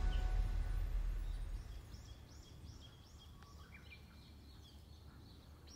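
Background music fades out in the first two seconds, leaving outdoor ambience with a low rumble and small birds chirping. The birds give a run of quick arched chirps, about three a second, followed by more scattered calls.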